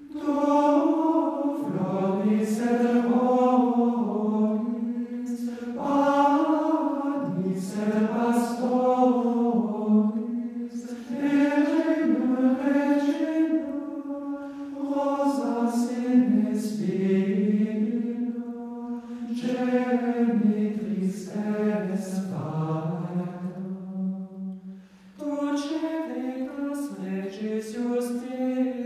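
Background music: sacred choral chant, voices singing a slow melody over a sustained low note, with a short pause near the end.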